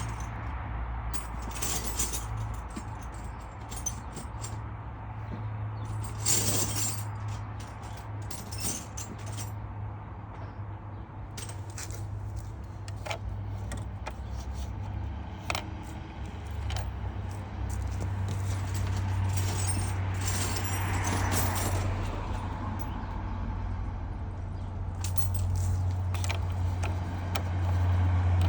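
Metal hand tools clinking and clicking irregularly against a car battery terminal clamp as it is fitted and tightened, over a steady low hum.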